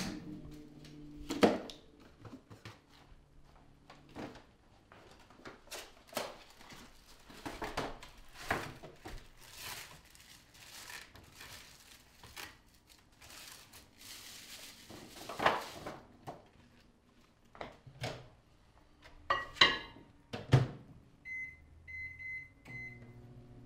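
Kitchen handling sounds: scattered clunks and knocks of doors and a plastic food tray, and the crinkle of the plastic film on a frozen TV-dinner tray. Near the end a microwave oven's keypad beeps a few times as the time is entered, and the oven starts to hum.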